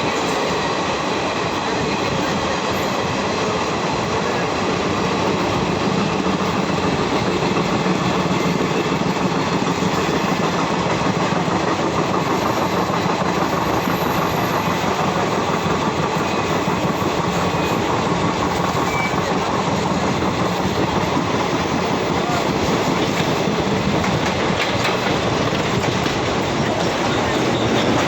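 Moving train: a steady rumble of wheels running along the rails.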